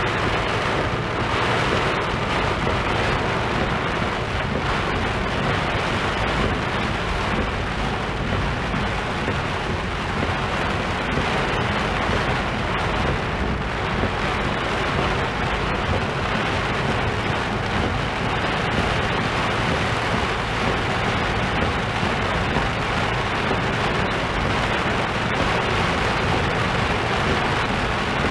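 Heavy rain on a moving car, heard from inside the cabin, with tyre noise on the wet road: a steady, loud wash of noise.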